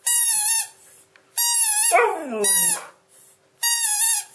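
A squeaky light-up toy ball squeezed by hand gives four short, high squeaks. About two seconds in, the Siberian Husky answers with a howl that slides down in pitch.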